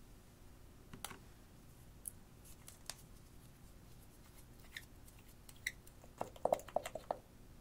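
Small clicks and ticks of a glass nail polish bottle being handled and its cap twisted open, scattered at first, then a quick run of louder clicks near the end.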